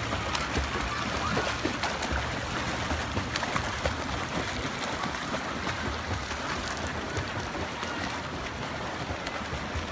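Steady wash of splashing water from swimmers doing freestyle in a pool.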